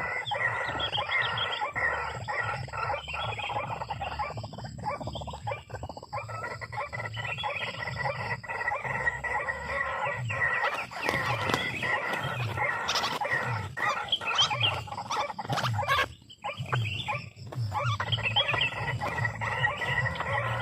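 White-breasted waterhens (ruak-ruak) calling, with many repeated, overlapping calls and a brief lull about 16 seconds in.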